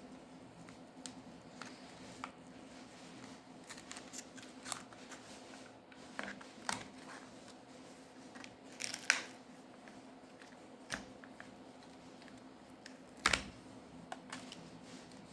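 Small clicks and scrapes of hand tools on a smartphone's parts during disassembly, with two sharper clicks about nine and thirteen seconds in, over a faint steady hum.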